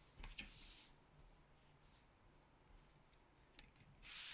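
Tarot cards being handled: two soft swishes of cards sliding against each other or the table, one about half a second in and one near the end, with a few faint clicks.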